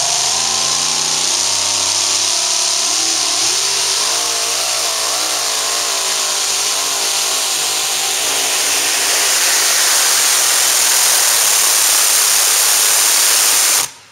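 Super modified two-wheel-drive pulling truck's engine running at full throttle while dragging the weight sled. Its pitch wavers up and down under the load, over a loud high hiss, and the sound cuts off suddenly just before the end.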